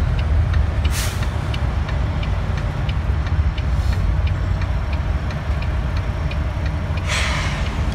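Semi truck's diesel engine running steadily, heard from inside the cab, with a faint regular ticking. Air brakes hiss briefly about a second in and again for about half a second near the end.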